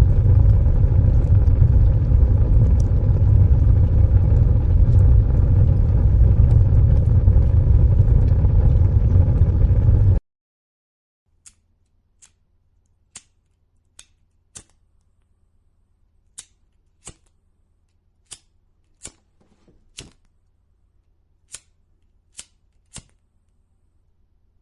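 Fire: a loud, steady roar of flames, strongest in the low end, which cuts off after about ten seconds. After a second of silence come sparse, sharp crackles and pops, about a dozen spread over the next twelve seconds, with a faint low hum beneath.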